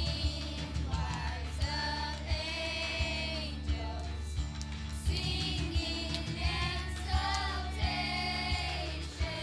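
A song: voices singing a melody over instrumental accompaniment with sustained bass notes.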